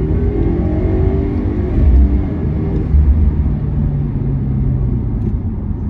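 2016 Subaru WRX's turbocharged 2.0-litre flat-four accelerating hard from low speed, its note rising in pitch. It drops back twice, about two and three seconds in, then runs steadier.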